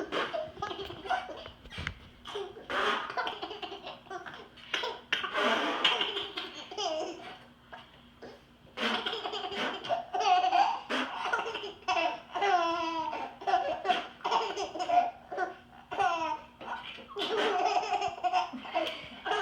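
A baby laughing hard in repeated bouts, at an adult's fake sneezes. There is a short lull about eight seconds in.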